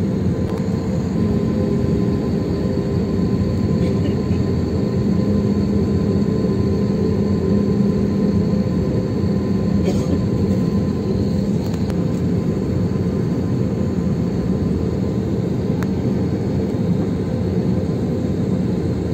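Cabin noise of a jet airliner taxiing: a steady rumble from the engines running at low power, with a faint steady whine above it.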